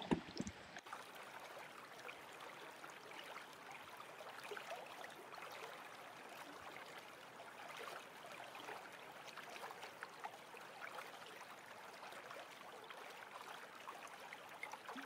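Small rocky creek running over and between stones: a steady, faint babble of flowing water.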